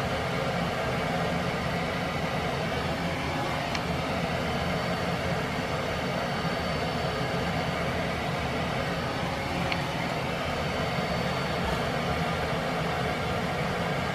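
1986 NuTone Proline 48-inch four-blade industrial ceiling fan running steadily: an even rush of moving air over a low motor hum.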